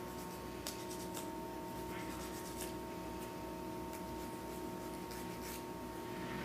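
Faint rustling and light scratching with a few scattered soft clicks over a steady electrical hum.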